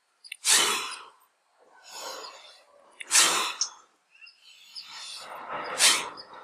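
Yogic breathing in vyaghra kriya (tiger breathing): three loud breaths out through the mouth about two and a half seconds apart, with softer breaths in between.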